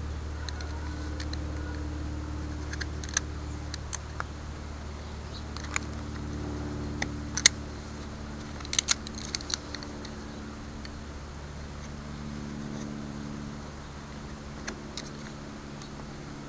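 A utility knife's razor blade cutting into a wooden walking stick: scattered sharp clicks and snaps as small chips are sliced out of the scale pattern, over a steady low hum.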